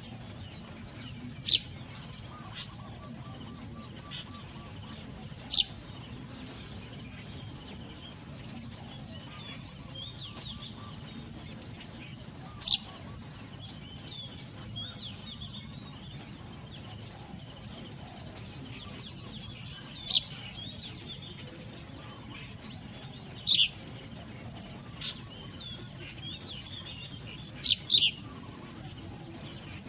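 Wild birds calling: loud, sharp, high single chirps every few seconds, the last as a quick double, over softer continuous twittering and a steady low background noise.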